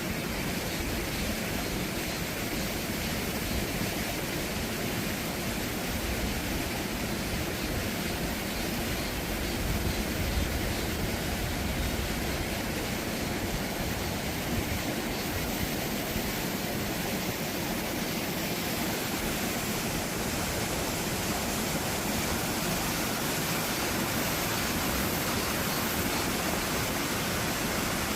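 Mountain valley stream rushing, a steady, unchanging wash of water noise.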